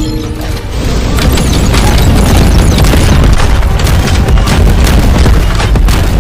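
Dramatic soundtrack music mixed with heavy booming sound effects, a dense run of blasts and impacts from about a second in.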